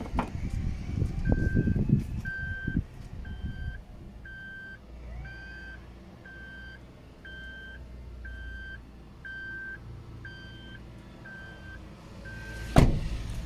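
FOTON truck cab's warning chime beeping steadily about once a second while the driver's door stands open with the key in the ignition. It stops as the door is shut with a sharp loud thud near the end. Dull handling thumps sound in the first few seconds.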